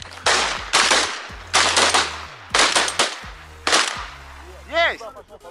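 A volley of shotgun shots from several hunters firing at geese overhead, about ten shots in four seconds, some in quick succession. A short call with rising and falling pitch comes near the end.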